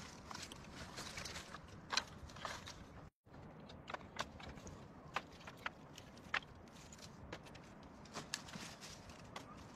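Dry wooden sticks knocking and clattering as firewood is gathered and stacked, a scatter of irregular sharp clicks over a steady background noise. The sound cuts out completely for a moment about three seconds in.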